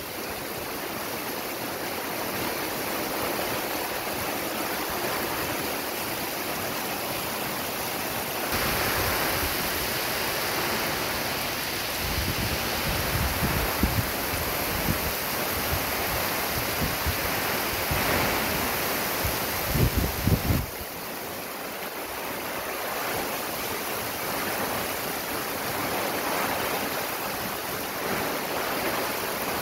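Heavy rain and strong wind in a storm, a steady rushing hiss. It grows louder about nine seconds in, with low rumbles through the middle, and eases again about twenty seconds in.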